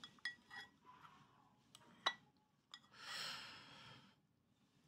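Chopsticks clicking against a ceramic dipping-sauce bowl, a few light clicks and one sharper tap about two seconds in, followed by a breath about three seconds in, lasting about a second.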